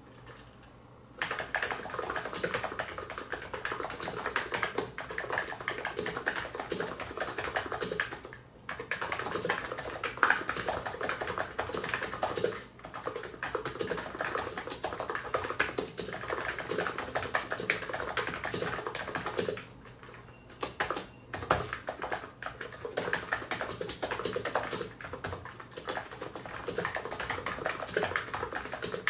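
Fast, continuous typing on an ABKO Hacker K980 keyboard with 45 g electrostatic capacitive (non-contact) switches: a dense patter of keystrokes. It starts about a second in and is broken by a few short pauses.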